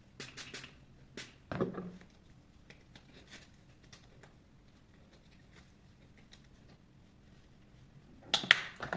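Scattered sharp clicks and knocks, like objects being handled and set down, with a duller knock about a second and a half in and a louder clatter of clicks near the end.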